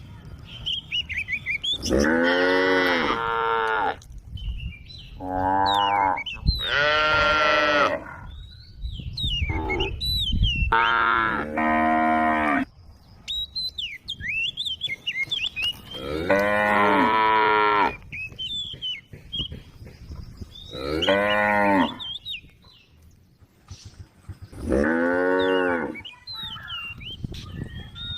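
Cattle mooing again and again: about nine long, low calls, each lasting a second or two, some following close on one another, with short gaps between. Thin, quick high chirps are heard in the gaps.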